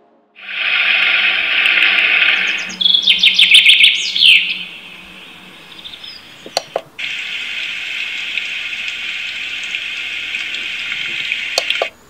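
White-noise sleep soother playing its built-in sounds through its small speaker: a running-water sound, then a burst of bird chirps, then after two sharp clicks a steady hiss of white noise that cuts off abruptly near the end.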